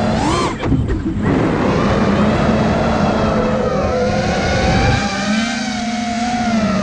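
Brushless motors and propellers of a 5-inch FPV quadcopter, heard on board, whining and rising and falling in pitch with the throttle over a rush of air. The pitch rises sharply about a third of a second in and the sound briefly thins out before the motors pick up again.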